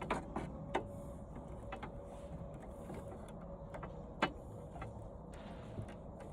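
Wires being pulled and handled out of an old TV set: scattered sharp clicks and snaps, a loud one at the start and another about four seconds in, over a faint steady hum.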